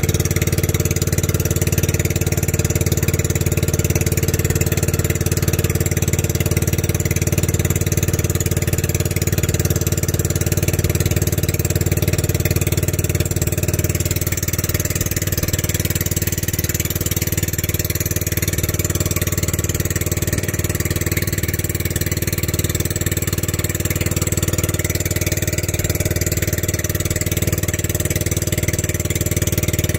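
Engine of a motorized outrigger boat running steadily at cruising speed, a constant drone with a hiss of water and wind over it.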